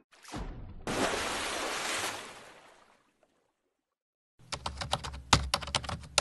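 A short falling whoosh and a rush of noise that fades out within about two seconds, then after a pause, from about four and a half seconds in, rapid computer keyboard typing clicks: a typing sound effect for a caption being typed out.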